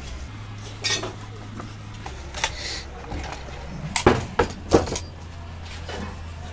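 Wooden sewing-machine base box handled on a workbench while it is polished: a couple of short rubbing strokes, then a quick run of sharp knocks and clinks about four seconds in as the box is turned over and set down.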